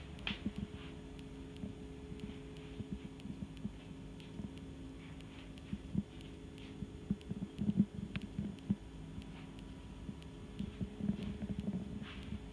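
A steady low hum, with irregular soft bumps and knocks from a handheld phone being moved about and carried.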